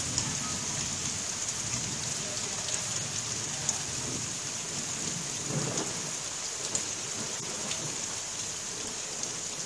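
Steady rain, a continuous hiss with scattered drop ticks. A low rumble of thunder swells about halfway through.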